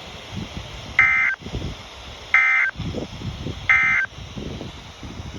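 Three short bursts of Emergency Alert System (SAME) end-of-message data tones on weather radio, each a harsh, warbling two-tone squawk about a third of a second long, spaced just over a second apart. The bursts signal that the alert message has ended. A low background rumble of radio noise runs between them.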